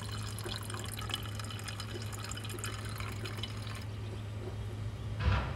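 Coolant splashing and dripping into the open expansion tank of a BMW N20 engine as the electric water pump purges air during the bleed cycle, over a steady low hum. The stream stops near the end, as the pump cycles off.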